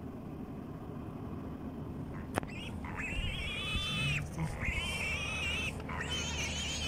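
An animal calling outside at night: a sharp click, then, from about three seconds in, three long, high, wavering calls of about a second each.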